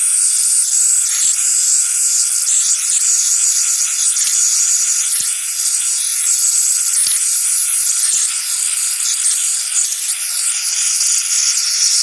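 Handheld gas blowtorch hissing steadily as its flame is played over the wooden surfaces of a used beehive box to scorch and sterilise it. A few faint ticks sound under the hiss.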